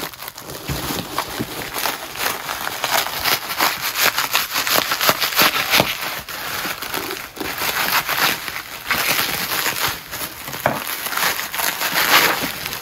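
Plastic bubble wrap crinkling and crackling as it is slit with a sharp knife and pulled away by hand, in quick, irregular bursts of crackle.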